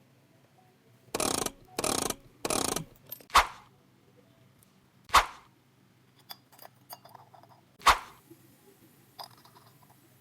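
Bench work on a chainsaw: three quick rasping bursts about a second in, then three sharp knocks a couple of seconds apart, with small clicks and taps between them.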